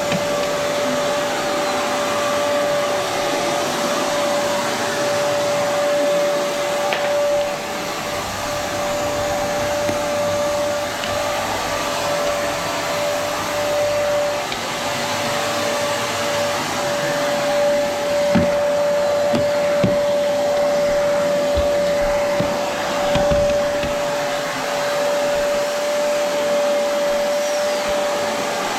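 Vacuum cleaner running steadily over carpet, its motor giving a constant whine, with a few short low knocks in the second half.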